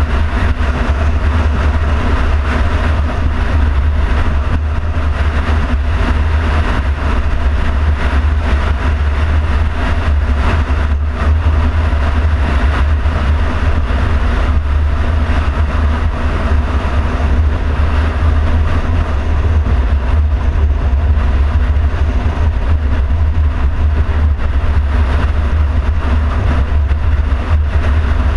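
A car driving along at a steady pace: a continuous, even rumble of road and wind noise, strongest at the very bottom, with no sudden sounds or changes.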